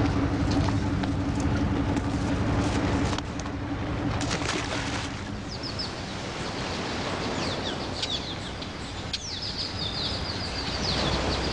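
A low, steady engine hum for about the first three seconds, like a boat's motor, then it drops away to an outdoor wash of noise. Birds chirp in quick high-pitched runs through the second half.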